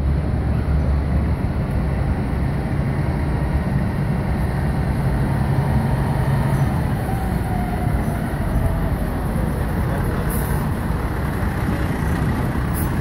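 Diesel engine of an FDNY aerial ladder truck running as the truck drives slowly past close by: a steady, loud low rumble.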